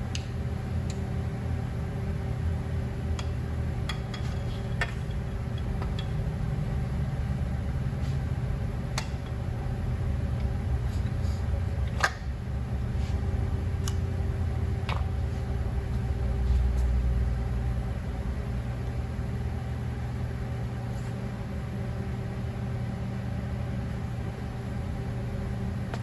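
A steady low mechanical hum, with a dozen or so light, sharp metal clicks and taps scattered through it as a dial indicator on its bridge and a piston are handled on a bare cast-iron V8 engine block.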